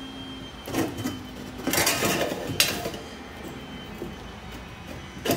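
Pliers gripping and bending the curved edge of a sheet-metal patch panel a little at a time, with metal scraping and clinking. A longer scrape comes just before halfway, followed by a sharp click.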